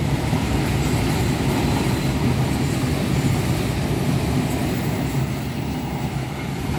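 Empty flat wagons of a rail-carrying works train rolling along the track as the train departs, a steady low rumble that eases slightly near the end.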